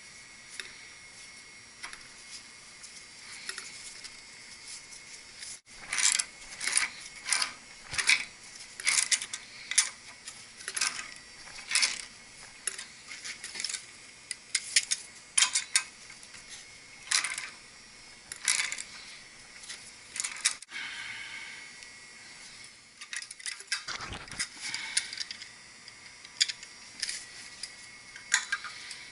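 Metal tools and steel pipe fittings clinking and clanking by hand, in irregular sharp knocks that come thick for a stretch, pause briefly, then pick up again near the end.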